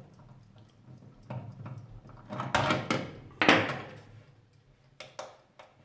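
Metal clicks and scrapes of a screwdriver and sheet-metal parts as two screws are taken out of an electric oven's control switch to remove it. Several separate scrapes, the loudest about three and a half seconds in, then a few short clicks.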